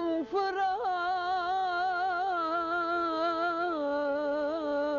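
A singer draws out one long, ornamented note of a Turkish folk song (türkü), its pitch wavering and dipping a little past halfway, over a violin holding a steady note.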